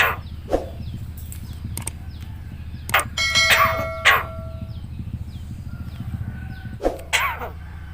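Javan myna giving a few short, sharp, harsh calls. About three seconds in it gives a louder call with several held whistled tones.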